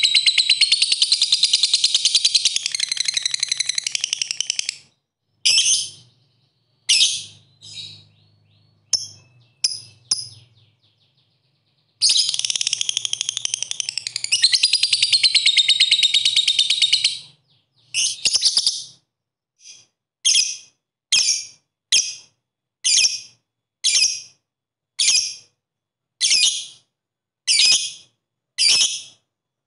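Fischer's lovebird singing: two long, unbroken, rapid chattering trills (ngekek), the first lasting about five seconds from the start and the second from about twelve to seventeen seconds in, with a few short chirps between them. The last third is a regular run of short sharp chirps, about one a second (ngetik).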